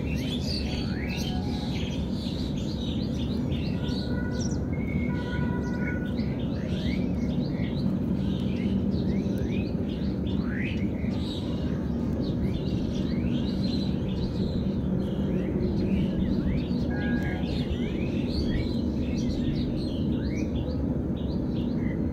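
Many birds chirping, a busy run of short, quick chirps with a few brief whistled notes, over a steady low background hum.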